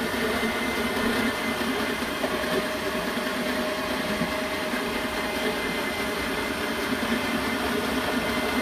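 Electric tilt-head stand mixer running steadily, whipping egg whites with cream of tartar in a stainless steel bowl for an Italian meringue; a faint steady whine joins in about two seconds in.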